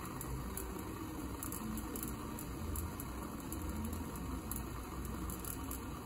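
Water heating in the lower Pyrex bowl of a 1930s Silex electric vacuum siphon coffee maker, a steady low simmering as it comes toward the boil that will push it up into the upper bowl.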